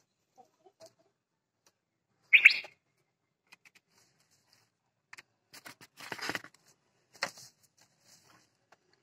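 A hen in the coop gives one short, loud squawk about two and a half seconds in, after a few faint low clucks. Rustling and scraping in the dry straw of the nest box follow in the second half.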